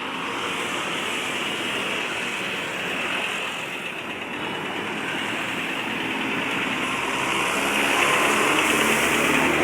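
Tour bus engine running amid road traffic noise, growing louder over the last few seconds as it draws near.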